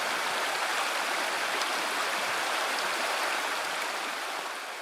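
Creek water rushing steadily, fading away near the end.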